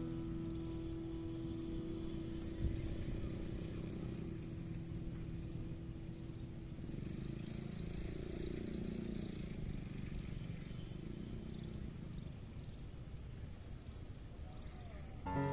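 Outdoor field ambience: a low rumble with a thin steady high tone.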